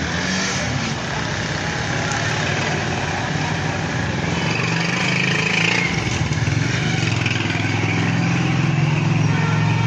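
Jalebi batter frying in a wok of hot oil, a steady sizzle, over a loud steady low hum that grows a little stronger in the second half.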